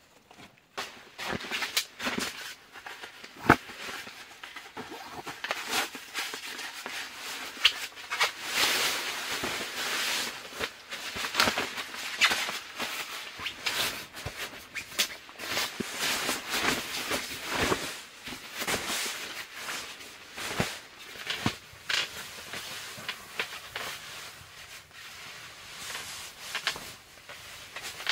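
Fabric rustling with many scattered clicks and knocks as someone moves about and handles a sleeping bag and gear. The rustling is densest about a third of the way in.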